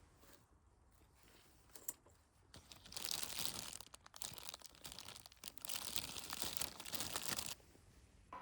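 Wrapping material being crumpled and torn for about five seconds, starting about two and a half seconds in and stopping abruptly near the end, after a couple of small clicks.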